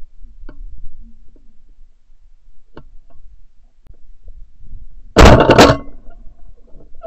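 A shotgun fired at flying pigeons: one very loud, clipped blast about five seconds in, lasting about half a second. A few faint knocks come before it.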